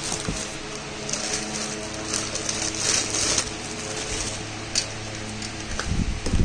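Clear plastic wrapping crackling and rustling as a stainless steel mixer-grinder jar is pulled out of its cardboard box, over a steady low hum. There is a sharp click about five seconds in.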